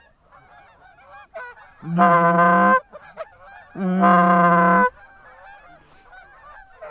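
Geese honking: a flock calls continuously in the background, with two long, loud, steady-pitched calls about a second each near the middle.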